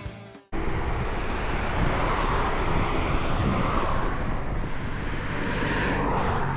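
Rock intro music fades and cuts off about half a second in, followed by a steady outdoor rumble and hiss of wind on the microphone.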